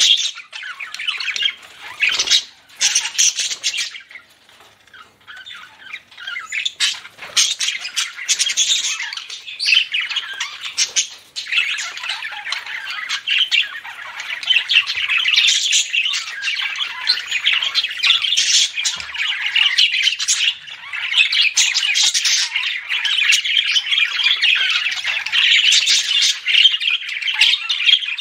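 Budgerigars chattering, chirping and squawking in a busy, continuous stream, with a brief lull about four seconds in.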